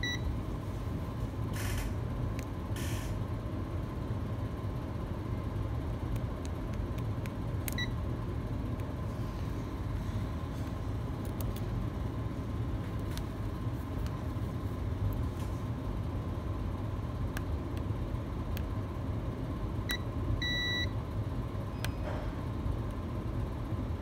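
Digital multimeter beeping in short tones as its probes are touched to components on an iPhone X logic board: once at the start, once about eight seconds in, and twice near twenty seconds, the second beep longer. A steady low hum runs underneath.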